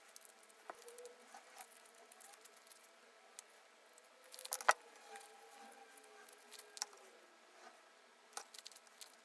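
Clear slime being worked by hand, giving scattered small sticky clicks and pops, with a louder run of clicks about halfway through and another near the end.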